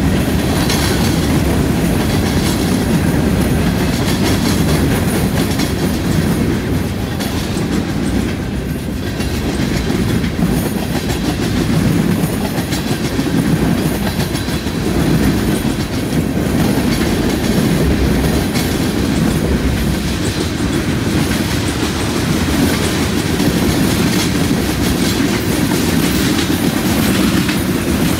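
Freight train cars rolling past at speed: covered hoppers, boxcars and tank cars, their steel wheels clattering steadily over the rails in a continuous loud rumble.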